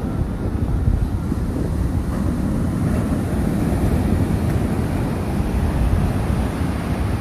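Sea waves washing ashore under steady wind blowing across the microphone, with a heavy low rumble from the wind buffeting.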